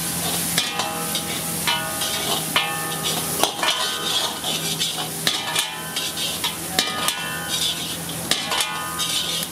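Metal ladle stirring vegetables in a black wok over a steady sizzle, striking the wok about eight times at irregular intervals, each knock ringing briefly.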